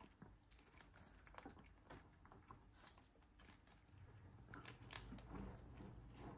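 Faint, quiet chewing and clicking of a Yorkshire terrier eating from a plastic bowl. A low steady hum comes in about four seconds in.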